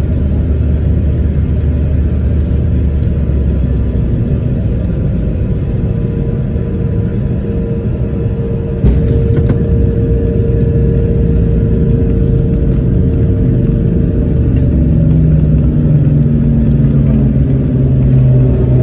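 Airliner cabin noise during landing: a loud, steady low rumble that suddenly steps up in loudness about nine seconds in. A steady hum runs through the middle, and a lower drone grows near the end.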